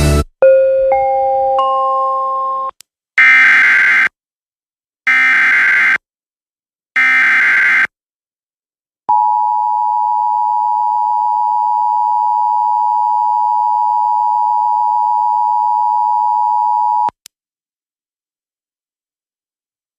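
Emergency Alert System tones: a short data chirp and a rising three-note chime, then three bursts of SAME header data screech about a second apart, each lasting just under a second. Then comes the EAS two-tone attention signal, held steady for about eight seconds before it cuts off, announcing the start of a new alert.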